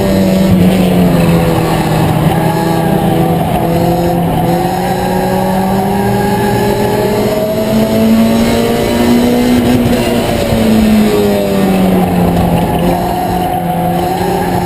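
Ford Escort's four-cylinder race engine running hard under load, heard from inside the cockpit. Its pitch holds fairly even, climbs for a few seconds in the middle, then falls back.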